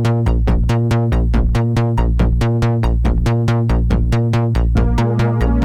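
Synthesizer music from a Korg Poly 61 playing a sound from a bought patch bank: rapid, evenly repeating notes over a pulsing bass.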